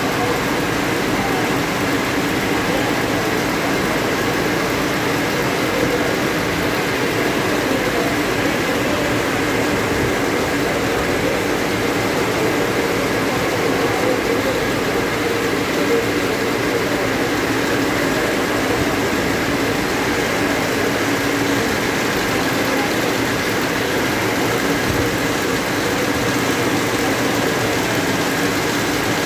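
High-speed needle loom weaving narrow tape, running with a loud, steady, dense mechanical clatter and a faint steady high tone.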